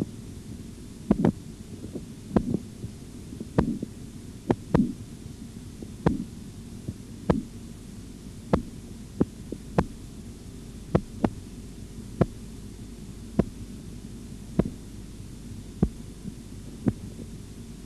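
Korotkoff sounds heard through a stethoscope over the brachial artery as the blood-pressure cuff deflates: sharp taps about once every 1.2 seconds over a steady low hum. The early taps are fuller and the later ones thinner, and the tapping stops near the end, which marks the diastolic pressure.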